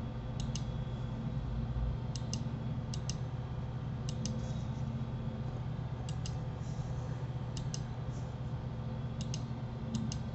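Computer mouse clicking: about eight sharp double clicks, each a quick press and release, spaced irregularly, over a steady low electrical hum.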